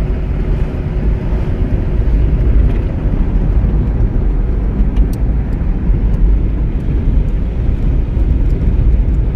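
Car driving along, with a steady low rumble of engine and road noise.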